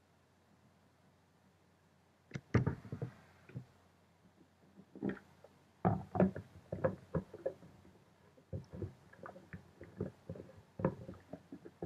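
Irregular knocks and clicks of objects being handled and set down, starting about two seconds in after a near-silent stretch.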